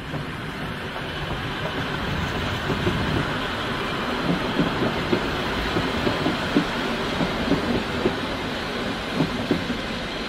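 A pair of ALn 668 diesel railcars passing, their diesel engines running. The sound grows louder over the first seconds, then a regular clickety-clack of wheels over rail joints comes about twice a second.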